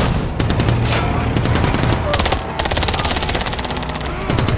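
Battle sound of rapid automatic fire from submachine guns, shots packed close together, with a fast unbroken burst in the second half. A deep rumble runs underneath.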